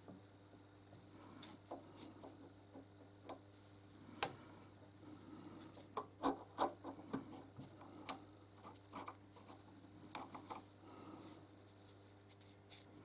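Faint irregular clicks and short scraping strokes of small hand work on metal parts, over a low steady hum.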